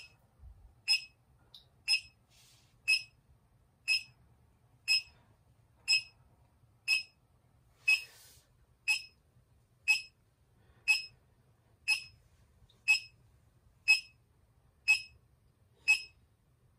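Short, high-pitched electronic beeps from a measuring instrument, repeating evenly about once a second.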